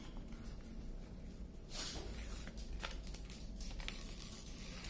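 Faint rustling of a diamond-painting canvas and its protective paper cover being handled and smoothed flat, with a sharper crinkle about two seconds in.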